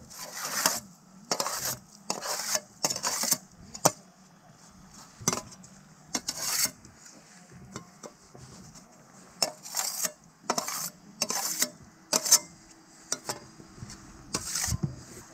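Loose panes of old window glass being handled by gloved hands: a dozen or so short scraping strokes as glass slides over glass and grit, with a few sharp clinks in between.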